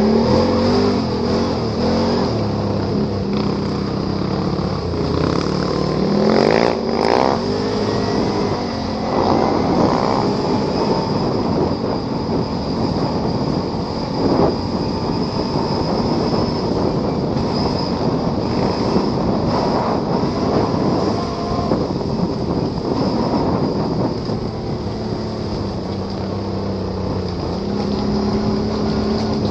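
Quad bike engine running on an offroad ride, its pitch rising and falling as the throttle is opened and closed, with a steady high whine above it. A few knocks about six to seven seconds in.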